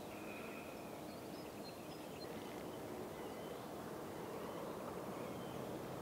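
Faint outdoor ambience: a low, steady rush with a few faint, short bird chirps scattered through it.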